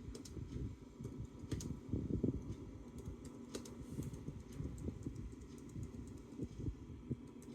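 Bluetooth keyboard being typed on, keys clicking in a fast, uneven stream of keystrokes.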